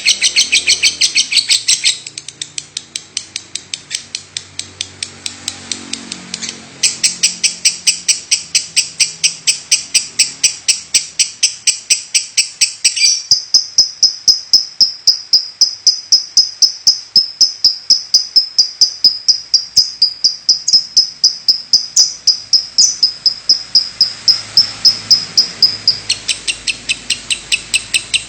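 Lovebird calling without a break: sharp, high chirps several times a second. The calls turn quieter for a few seconds early on, then loud again. About halfway through they become a thinner, higher, fast-pulsing trill that holds for around thirteen seconds before going back to the fuller chirps.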